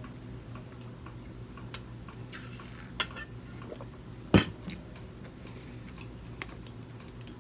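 A person eating sushi: quiet chewing with scattered small clicks, a short rustle, and one sharp click about four seconds in.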